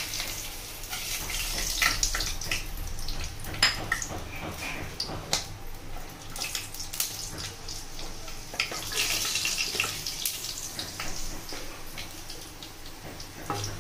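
Bay leaves and whole garam masala sizzling and crackling in hot oil in a wok, the oil being tempered. A wooden spatula stirs and scrapes the spices around the pan.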